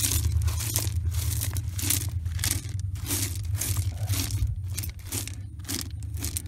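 A hand raking and pushing crushed gravel in the bottom of a dug hole: stones scraping and crunching against each other in short strokes, about two a second. A steady low rumble runs underneath.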